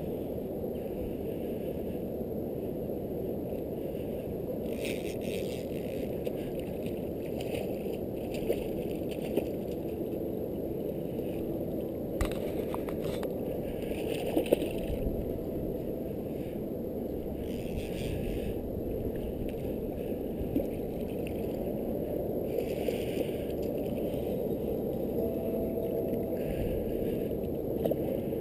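Small outboard motor on a fishing boat running steadily at trolling speed, heard muffled as a low rumble. Short higher rasps come every few seconds, and there are a few sharp knocks.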